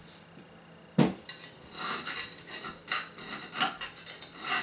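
A small hand file scraping back and forth on the edge of a slot in a thin plate: a sharp tap about a second in, then short strokes at about two to three a second. The slot is being filed wider to fit a linear rail.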